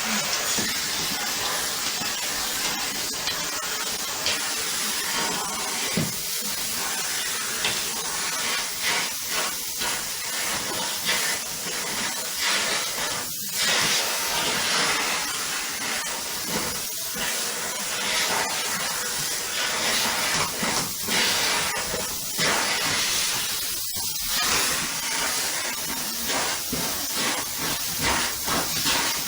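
Vacuum cleaner running, a steady airy hiss of suction, with a few brief dips in the hiss.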